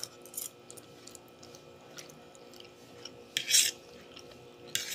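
Close-up eating sounds of spaghetti carbonara: small wet chewing and mouth clicks, with a short hissing slurp about three and a half seconds in and another near the end.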